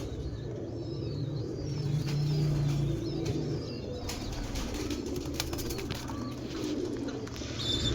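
Pigeons flapping their wings and cooing, with a few faint high squeaks and a cluster of sharp clicks around the middle.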